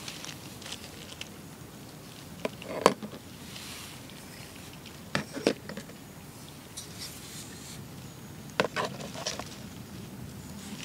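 Flint knives set down on a stiff sheet of dried deer rawhide: short hard knocks and taps in three small clusters, about 3, 5½ and 9 seconds in, the loudest near 3 seconds.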